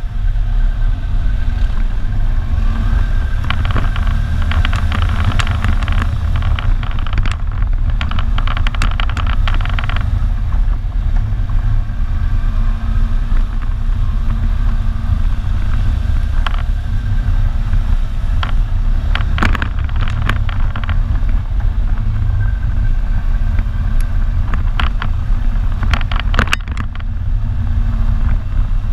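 ATV engine running steadily under load while riding a rough, muddy trail, with clusters of short clattering knocks several seconds in, again around the middle and near the end.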